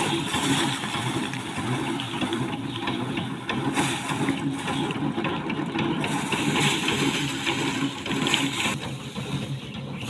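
Foot-pedal rice thresher's spinning drum whirring steadily, with dense crackling and rattling as bundles of rice stalks are held against it and the grain is stripped off.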